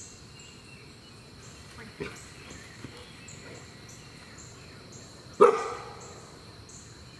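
A six-month-old Bernedoodle puppy (Bernese mountain dog × standard poodle) barks once, loud and sharp, about five seconds in, after a fainter short sound near two seconds.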